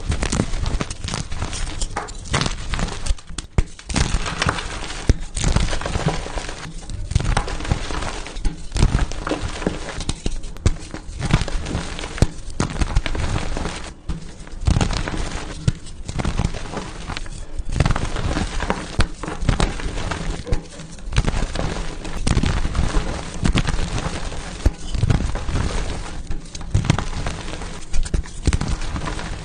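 Blocks of pasted (reformed) gym chalk being crushed and crumbled, a dense run of crunches and crackles broken by a few short pauses.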